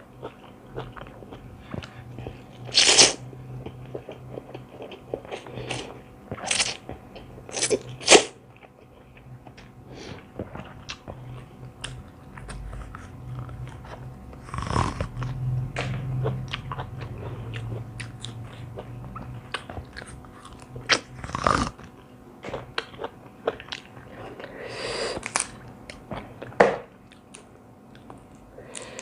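Close-up chewing and biting of a noodle salad with raw vegetables, with wet mouth sounds and about half a dozen louder, sharper crunches spread through.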